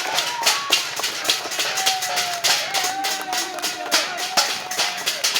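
A crowd of people clapping hands fast and unevenly, many claps overlapping, with a held high tone of a second or so about two seconds in.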